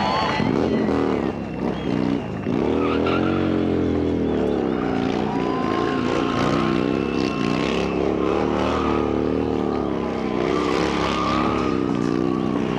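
Sportbike engine held at high revs during a burnout, the rear tyre spinning and squealing on the tarmac. The revs drop briefly twice in the first few seconds, then hold with small rises and falls.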